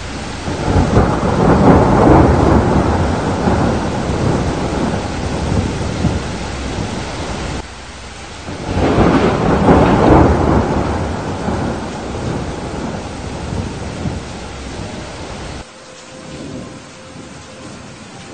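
Thunderstorm: two long rolls of thunder over a steady hiss of heavy rain. The first builds up in the opening two seconds and fades over several seconds; the second starts about nine seconds in. Each roll drops off suddenly instead of dying away, leaving the rain alone near the end.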